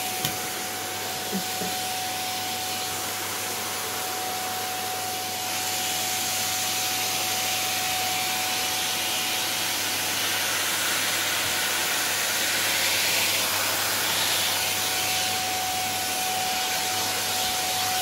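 Vacuum cleaner running steadily: a rush of air with a steady whine, growing a little louder about five seconds in.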